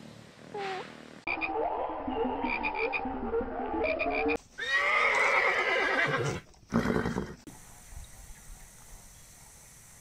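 A string of animal calls: a brief call about half a second in, then a run of overlapping pitched calls. Near the middle comes the loudest sound, a horse whinnying for about two seconds, falling in pitch, followed by a short call and a quieter stretch.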